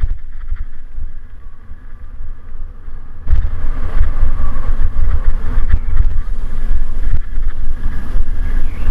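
Wind buffeting the microphone of an action camera on a mountain bike riding fast down a dirt forest trail, mixed with the rumble of the tyres over the ground. The rush gets abruptly louder about three seconds in.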